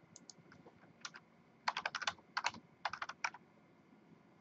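Typing on a computer keyboard: several quick runs of keystrokes, stopping about three and a half seconds in.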